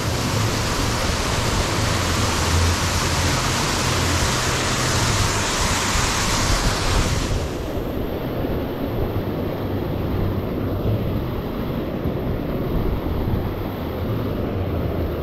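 Wind buffeting the microphone, a gusty low rumble, under a steady hiss that cuts off suddenly about seven seconds in.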